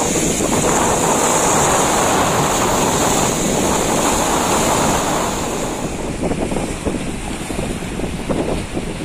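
Strong wind buffeting the microphone over the rush of rough sea waves. The rushing swells over the first five seconds, then turns choppier and more broken near the end.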